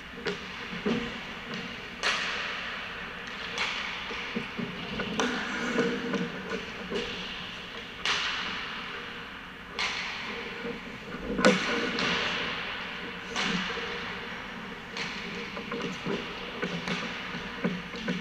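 Ice hockey pucks being passed and shot: sharp cracks of sticks on pucks and pucks hitting the boards every second or two, each echoing through the arena, over a steady scrape of skates on ice. The loudest crack comes about eleven seconds in.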